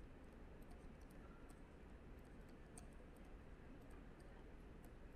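Near silence with faint, irregular ticks of a stylus on a writing tablet as words are handwritten.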